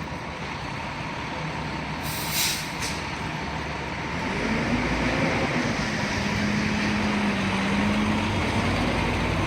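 Fire engine's diesel engine running, with two short bursts of air-brake hiss about two seconds in. From about four and a half seconds the engine note rises and grows heavier as the truck pulls away.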